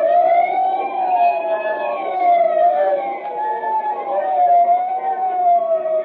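Police siren sound effect from an old-time radio broadcast, wailing with its pitch slowly rising and falling several times, heard through the thin, narrow sound of an old recording.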